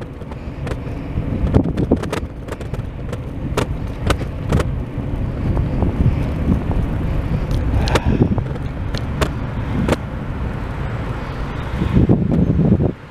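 Handheld walking recording on a city street: a steady low rumble, mostly wind and traffic on the microphone, with repeated knocks from footsteps and camera handling, some about half a second apart. It swells near the end and then drops off suddenly.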